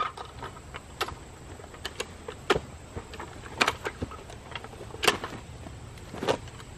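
Heavy steel floor jack being dragged and handled, giving scattered metal clanks and knocks from its wheels and long handle, about seven in all. A steady low hum runs underneath.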